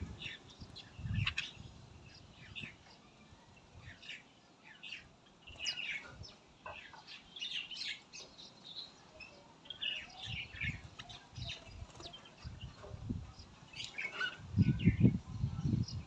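Small birds at a feeding spot, bulbuls and mynas, calling with many short, high chirps throughout. A few dull low thumps near the end are louder than the calls.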